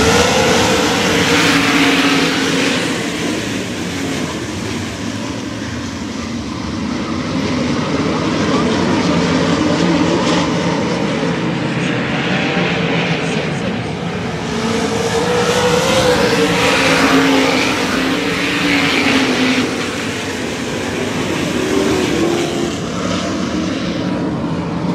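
A pack of winged sprint cars racing on a dirt oval at full throttle, many V8 engines at once, their pitch rising and falling and the din swelling and fading as the field goes by.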